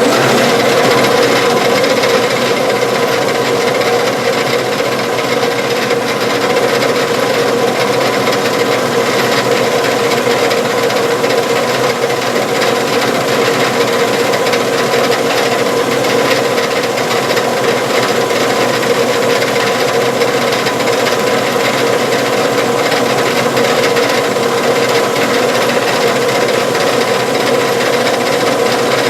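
A drill bit boring a hole through a small metal hinge piece. It makes a loud, steady scraping cutting noise over a constant machine hum, with no pauses.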